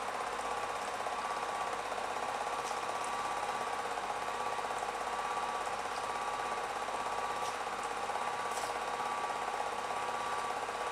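8mm film projector running: a steady mechanical whirr with a fast, even rattle and a constant hum.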